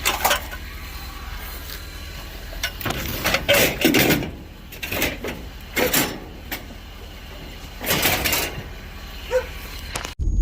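Pieces of scrap steel being handled and loaded: a run of separate metal clanks and rattles every second or two. The sound breaks off abruptly near the end.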